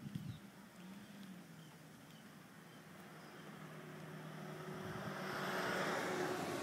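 Diesel engine running at a low steady idle, with a rush of noise swelling toward the end.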